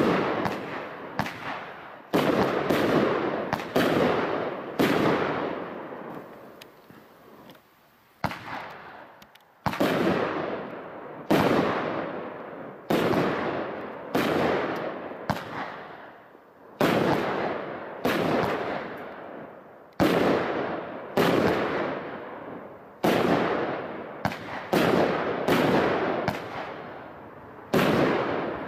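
Aerial fireworks from a Brothers Pyrotechnics Django kit firing a string of sharp bangs, about one a second. Each bang trails off in a long echo. There is a lull of a few seconds about a quarter of the way in.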